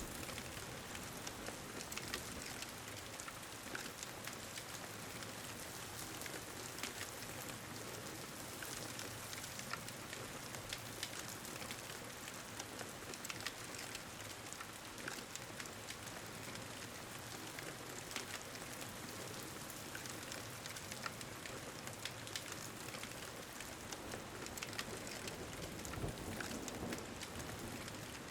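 Steady pouring rain with many small sharp crackles and pops from a wood fire. A soft low rumble of thunder swells near the end.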